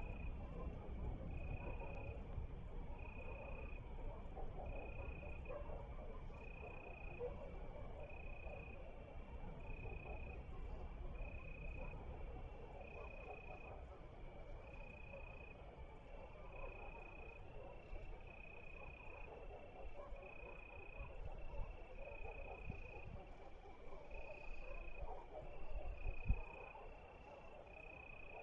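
Crickets chirping in a steady pulse of short high chirps about once a second, with a second, slightly higher-pitched one joining in, over a low outdoor rumble. A single low thump near the end.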